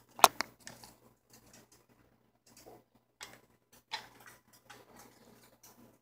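A parrot's beak and claws clicking and tapping on hard plastic as it clambers: two sharp clicks close together just after the start, then scattered single taps, the clearest about three and four seconds in.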